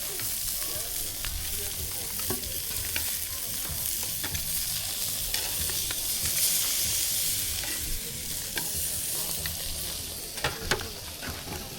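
Meat sizzling as it cooks, a steady crackling hiss with a few scattered small clicks.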